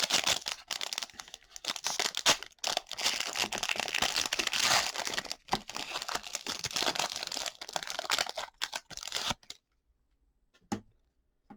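A trading-card pack's plastic wrapper being torn open and crinkled, with dense crackling that stops about nine and a half seconds in, followed by one short click near the end.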